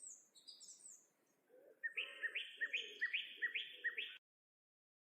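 Songbird singing: a few high chirps, then from about two seconds in a rapid run of about eight repeated chirping notes, cutting off abruptly shortly before the end.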